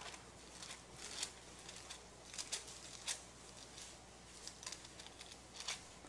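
Pages of a Bible being leafed through on a pulpit: several short, faint papery rustles at irregular moments, over a steady low electrical hum.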